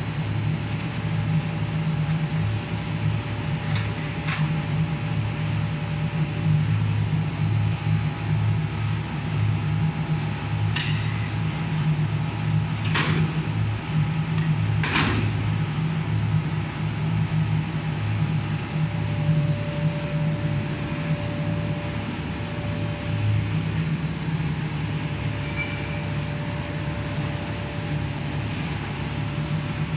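Five-layer co-extrusion stretch-film cast line running on its trial run: a steady machine hum from its motors and rollers, with a few steady tones over it. Several sharp clicks stand out, the two loudest near the middle.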